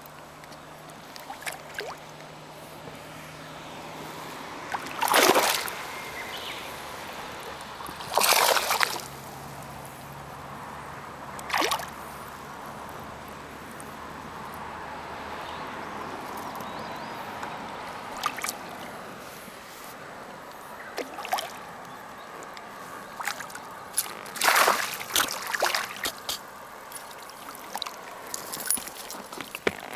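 A hooked largemouth bass splashing at the surface of a pond. There are several loud splashes a few seconds apart: four big ones in the first half and again about two-thirds through, with smaller splashes between them and near the end.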